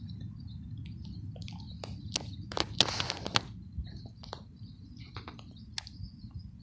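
Outdoor ambience: faint bird chirps over a low steady rumble, with scattered clicks and a short rustle around three seconds in.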